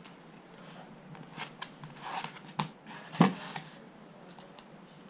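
Workbench handling sounds: scattered light taps and knocks of tools and parts being set down and positioned, with one sharper knock a little over three seconds in.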